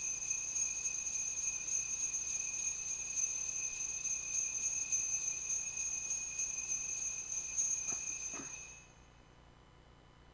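Altar bells (Sanctus bells) shaken in a steady jingling ring for about nine seconds, stopping near the end, marking the elevation of the consecrated host.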